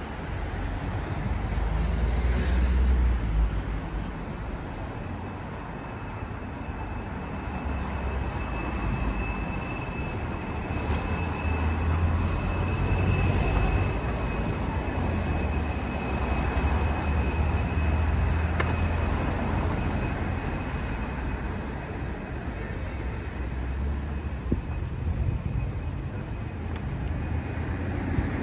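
A train passing: a low rumble that swells and eases, with a steady high-pitched whine running through the middle.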